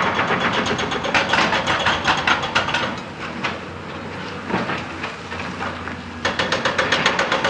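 Hydraulic rock breaker on an excavator hammering rock in a rapid, even rhythm of blows. It eases off for a couple of seconds in the middle, then starts hammering again.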